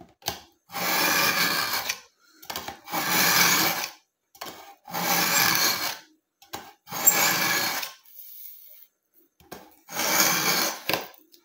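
Kitchen knife blade pulled through a manual pull-through knife sharpener: five strokes of steel scraping through the sharpening slot, each about a second long and roughly two seconds apart, with light clicks between strokes.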